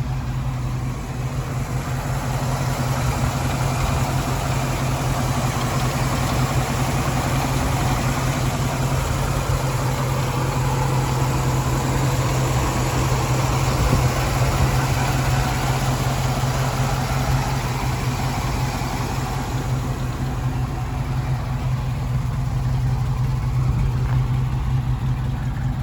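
1969 International Scout 800A engine idling steadily with a low rumble, still warming up after a cold start.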